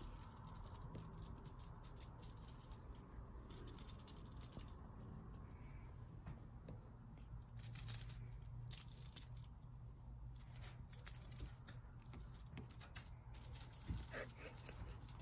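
Kittens' claws scratching and plucking at a crocheted basket and the soft rug around it as they play: irregular bursts of light, crackly clicks.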